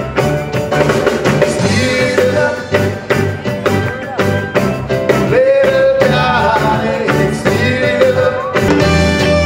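Steel drum band playing a reggae song, with voices singing along over the beat.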